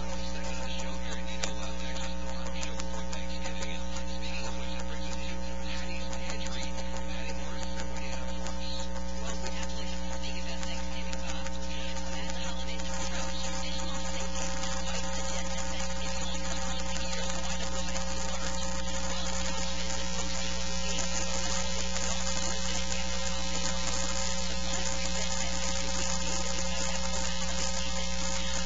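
Steady electrical mains hum and buzz, a stack of unchanging tones over constant hiss, with no speech. The hiss turns brighter about two-thirds of the way through.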